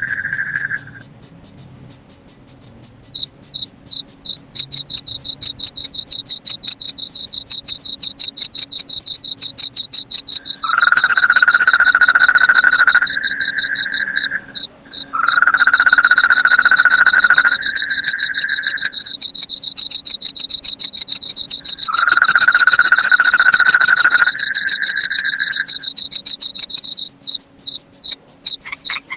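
Night chorus of crickets and other insects: a fast, high-pitched pulsing trill runs throughout. Three times, about ten, fifteen and twenty-two seconds in, a lower, steady call of another night animal sounds for two to three seconds, stepping up slightly in pitch near its end.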